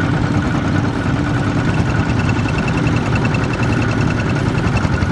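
Several two-wheel walking tractors' single-cylinder diesel engines running together, a steady low rumble.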